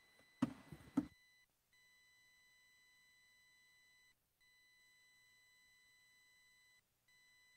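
A few knocks and bumps in the first second, then a faint, steady, high-pitched electronic beep tone with overtones that drops out briefly twice.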